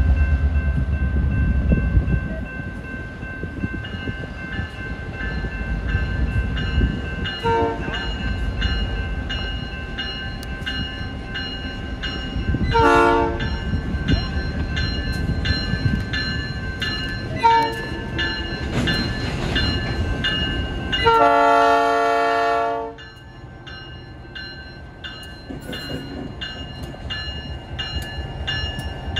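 EMD SD9 diesel locomotive with its 16-cylinder 567 engine rumbling as it works toward a grade crossing, sounding its multi-chime horn in four blasts, the last and longest lasting nearly two seconds near the end. A crossing bell rings steadily underneath.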